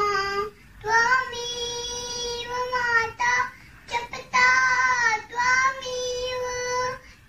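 A young girl chanting a prayer shloka solo, in long held notes, with short pauses for breath between the phrases.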